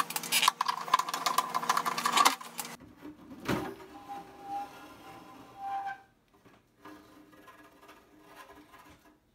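A small power screwdriver running as it backs out the case screws of a Heathkit IM-12's steel cabinet, a steady whine with rapid clicking for about two seconds. Then the metal chassis scrapes as it slides out of the case, with a sudden sweep partway through.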